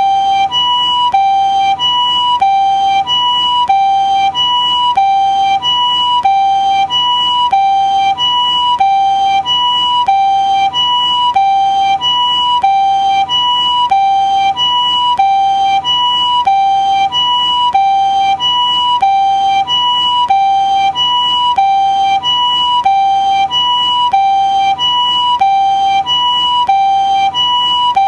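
Japanese ambulance siren sounding its two-tone "pee-po" call: a high note and a lower note alternating evenly, each held a little over half a second, with no glide between them.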